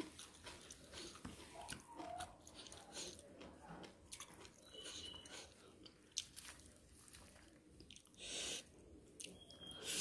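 Close-miked chewing of a mouthful of food: soft, irregular crunches and wet mouth clicks. A short louder hiss-like burst comes about eight seconds in.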